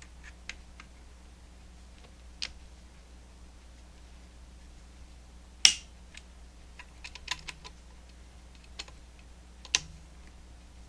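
Click-type torque wrench working on steel rail screws: scattered small ticks as it turns, and two sharp clicks, the loudest about halfway through and another near the end, as the wrench breaks over at its set torque.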